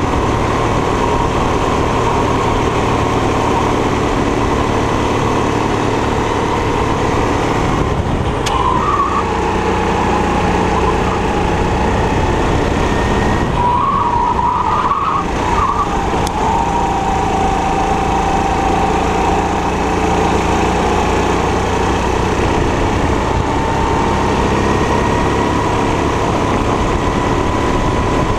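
Single-cylinder 270 cc four-stroke kart engine running hard on a lap. The engine note dips as the kart slows for bends near the middle, then climbs steadily back as it accelerates.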